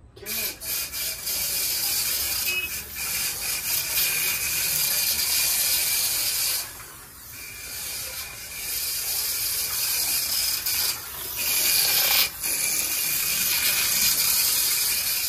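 Vintage Aurora Vibrator HO slot cars racing: a harsh, buzzing rasp from their vibrating-reed drives. It rises and falls with the throttles and drops back briefly about seven seconds in and again about twelve seconds in.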